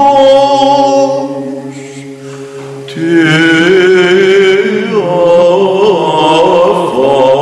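Byzantine chant: a male lead chanter sings an ornamented, wavering melody over a low held drone (the ison) sung by other men. The voices thin out for a moment, then the melody comes back in about three seconds in.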